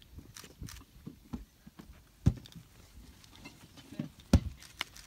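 Irregular footsteps and scuffs on dry, stony ground, with a few louder knocks, the loudest about two and four seconds in.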